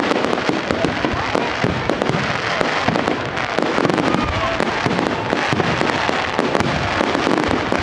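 Fireworks display: a dense, continuous barrage of bangs and crackling from aerial shells, with no let-up.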